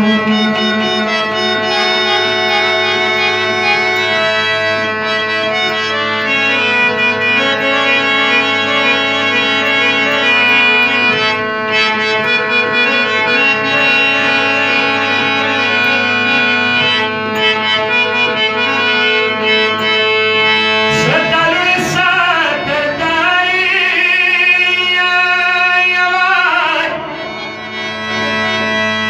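Harmonium playing a melody over held reed chords. About three quarters of the way in, a man's voice comes in over it with a long, wavering sung phrase of a Pashto noha lament.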